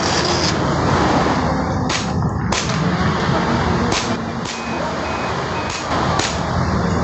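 Airsoft gun fired in single shots, about six sharp cracks at irregular intervals of roughly half a second to two seconds, over steady background rumble.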